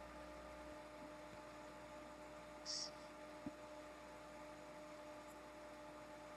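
Faint steady electrical hum, with a brief high hiss a little under three seconds in and a small click just after it.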